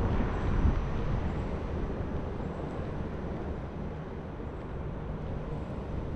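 Outdoor street ambience: a steady low rumble of road traffic and wind on the microphone, somewhat louder in the first second before settling.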